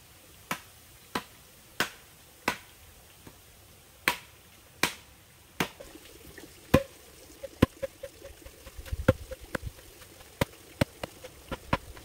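Sharp knocks from a hand tool striking, about one every two-thirds of a second, coming quicker and more irregularly from about seven seconds in.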